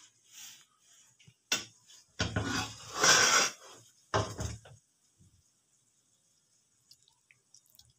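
A plate and serving utensils clattering and scraping as food is dished out. There is a sharp knock about a second and a half in, then two short bouts of scraping and clinking, the louder one about three seconds in, then only faint ticks.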